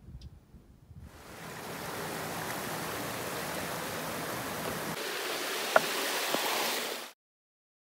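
Rushing water of the South Branch of the Carrabassett River pouring over rocks, a steady rush that fades in about a second in. Near the end come two sharp knocks, the first the loudest, and then the sound cuts off abruptly.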